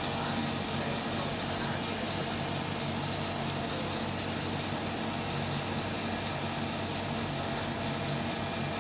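CNC lathe running steadily: a continuous, even machine drone with a low hum.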